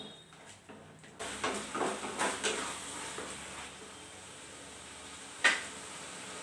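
Ladle knocking and scraping in a pan of carrot halwa, with the thickening mixture hissing as it cooks; a single sharp clack about five and a half seconds in.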